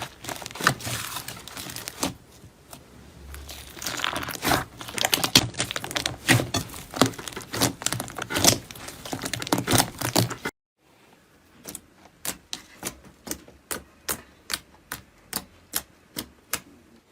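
Slime being squeezed and pressed by hand, giving dense, irregular crackling and popping. About two-thirds of the way through it cuts to a quieter clip of sharp, evenly spaced pops, about two a second.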